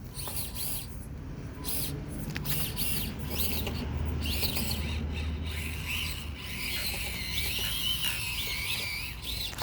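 Small electric motors and gears of 1/24-scale SCX24 RC crawlers whining, the high pitch rising and falling with throttle as they crawl over the course.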